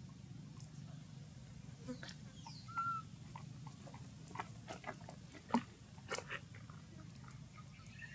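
Outdoor ambience: a steady low hum with scattered light clicks and ticks. A short animal chirp comes about three seconds in, just after a brief falling whistle.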